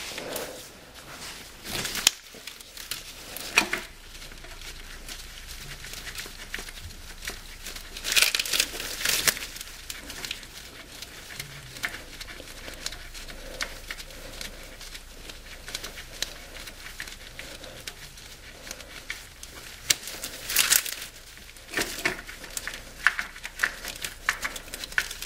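Irregular clicks, scrapes and rustling of hand work on the starter's upper mounting bolt in the engine bay, with two louder clattering clusters, one about eight seconds in and one near twenty-one seconds.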